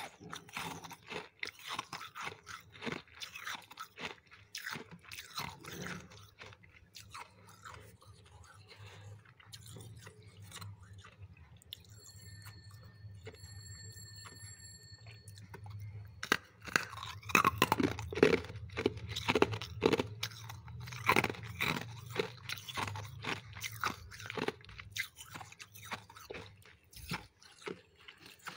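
Refrozen freezer frost chunks being bitten and chewed close to the microphone: dense, crackly crunches. They ease off for a while in the middle, then come back loudest about two-thirds of the way through.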